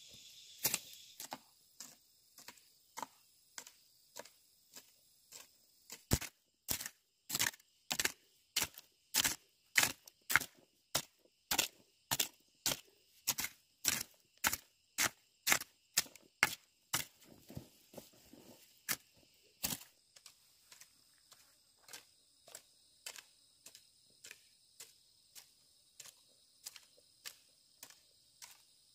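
Repeated sharp strikes at an even pace of about two a second, loudest through the middle stretch and fainter near the start and end, over a steady high insect chorus.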